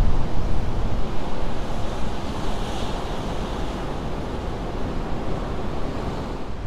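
Ocean surf breaking on a rocky shore: a steady wash of waves, with a wave's hiss swelling about three seconds in, and wind buffeting the microphone.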